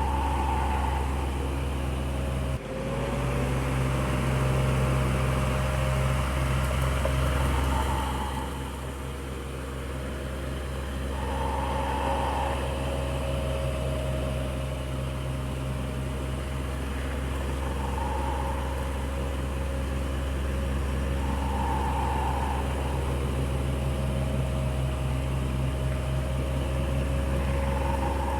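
Electric fan running steadily: a motor hum with several steady tones under a haze of moving air. About two and a half seconds in there is a sudden break, after which one of the tones slides slightly up in pitch.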